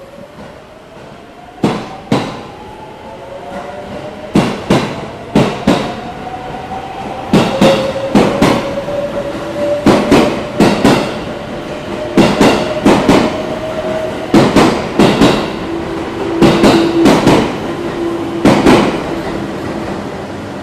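Electric train pulling out and gathering speed: its motors whine, slowly rising in pitch, while its wheels clack over the rail joints in quick groups of two to four, the groups coming closer together as it speeds up.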